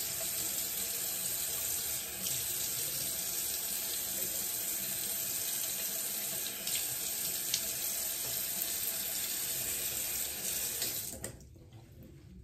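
Bathroom sink tap running steadily while she rinses a lip scrub off her lips, with a few small splashes; the water is turned off about a second before the end.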